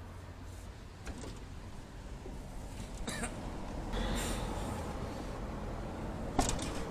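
Scattered metallic clicks and knocks of tools and parts being handled during hands-on mechanical repair, with a short scrape about four seconds in and a sharp knock near the end, over a low steady hum.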